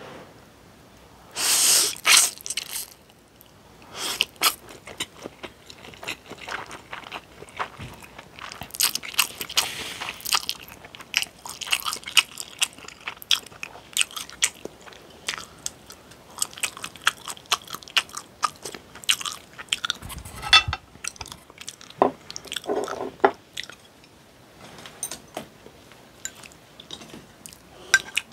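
Close-miked eating of Buldak spicy stir-fried noodles: a loud slurp about a second and a half in, then chewing with many small wet mouth clicks and smacks.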